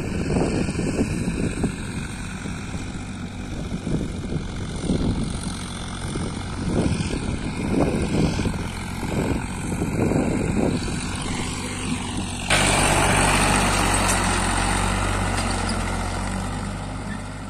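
Ford 3600 tractor engine running under load as it pulls a tine cultivator through dry soil, heard at a distance with gusty wind noise on the microphone. About twelve seconds in it cuts to close range, where the engine and the cultivator working the soil are louder and steadier. The sound then fades out near the end.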